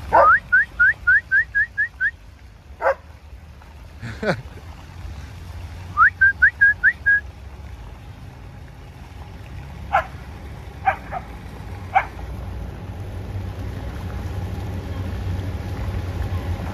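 Dog yipping excitedly: two quick runs of short rising cries, then a few single yelps spaced out, over a low steady rumble.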